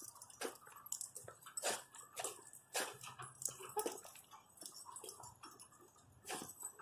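A dog moving close to the microphone: a run of short, irregular clicks and scuffs, about two a second.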